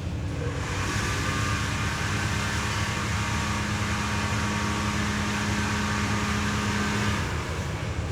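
Hot air rework station blowing, a steady airy noise with a fixed hum under it. It comes on about half a second in and shuts off about a second before the end.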